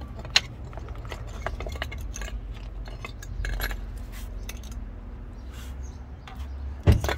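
Metal brake parts being handled: scattered clinks and taps as brake pads are pulled from a caliper bracket and set down on brick paving, with a louder knock near the end.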